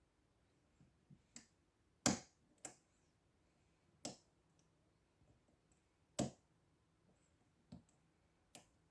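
Sharp metallic clicks from a hook pick working the pin stack inside a padlock's cylinder under tension, about seven irregularly spaced clicks with the loudest about two and six seconds in.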